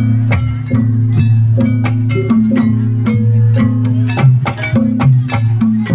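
Javanese gamelan playing a fast gending srampat for jaranan: saron and demung metallophones struck in quick, even notes over long, low ringing gong and kenong tones, with kendang drum.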